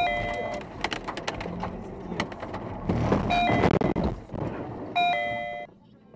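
Car driving on a wet highway, heard from inside the car, with scattered clicks over the road noise. Three short tones sound about a second or less each: at the start, about three seconds in, and about five seconds in. The sound then cuts off to near silence just before the end.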